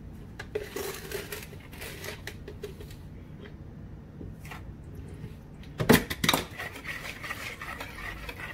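Measuring and mixing sounds: a plastic measuring cup scooping and handling sugar, two sharp knocks about six seconds in, then a whisk clicking and scraping against a ceramic mixing bowl as the sugar is stirred into batter.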